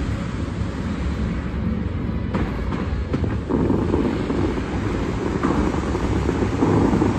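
Steady rushing of the fountain's water jets and falling spray, with wind buffeting the microphone as a low rumble. The rush grows fuller about three and a half seconds in, as the jets shoot higher.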